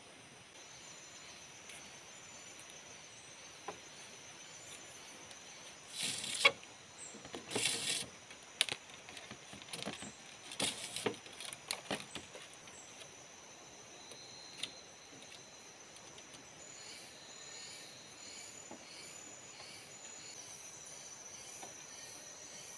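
Steady high-pitched drone of forest insects, with a few seconds of rustling and scraping and one sharp knock from bamboo poles being handled and lashed together with fibre strips.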